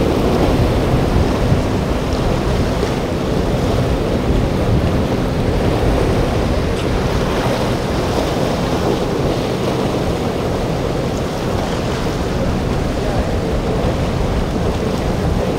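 Steady rush of surf and wind buffeting the microphone at the inlet, with a low hum of boat engines underneath.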